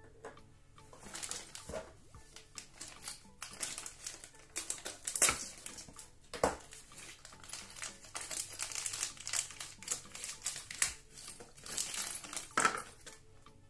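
Clear plastic bag crinkling as it is handled and opened, with a few sharp clicks, loudest about five and six and a half seconds in.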